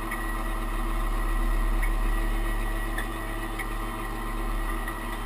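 M35A2 2½-ton military truck's turbocharged multifuel inline-six diesel running steadily, with a faint tick repeating a little under twice a second.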